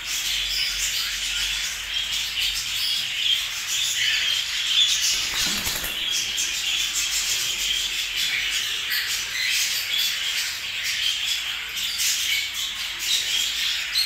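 A flock of cockatiels chirping and chattering without a break, many short calls overlapping.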